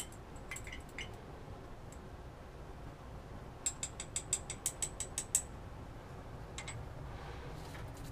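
Plastic cap being twisted onto a small glass sample vial: a quick run of about ten light, sharp clicks from the threads, about halfway through, with a few lighter ticks of glass handling before and after.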